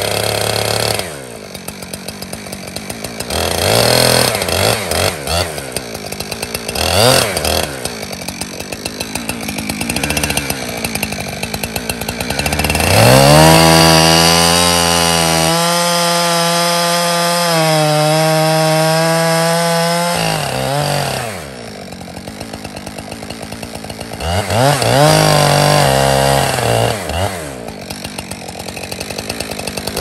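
Gas chainsaw idling with short throttle blips, then running at full throttle for about eight seconds as it cuts into a tree trunk, before dropping back to idle. It revs again briefly later on and once more at the very end.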